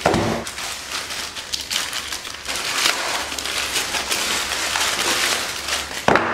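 Plastic courier mailer bag crinkling and tearing as hands rip it open and pull out the wrapped contents, with a thump on the desk as it starts and a sharp knock near the end.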